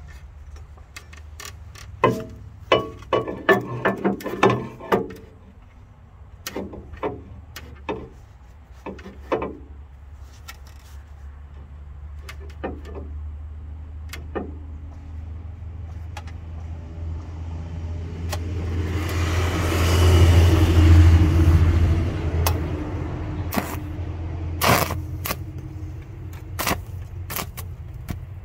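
Cutting torch burning through steel flat bar: a broad rushing hiss swells about two-thirds of the way in and fades after about four seconds. Sharp metallic clicks and knocks come in clusters before and after it, over a steady low hum.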